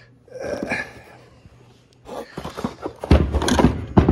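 Handling noise of a metal part and tools being moved about on a wooden workbench: irregular knocks and clatter, building up in the second half to a run of heavy thumps in the last second.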